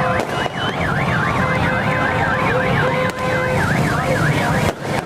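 An electronic siren yelping rapidly up and down, about four sweeps a second, over a steady crowd din and a few held, horn-like tones.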